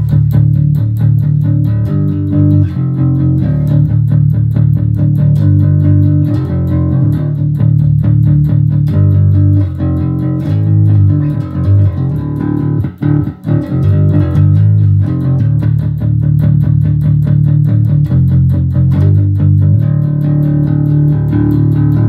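Electric bass guitar (Jackson JS1M Concert Bass in drop D) played loud through a Fender Rumble 25 V3 combo amp with its overdrive engaged: a continuous run of low plucked notes, with a short break about halfway through.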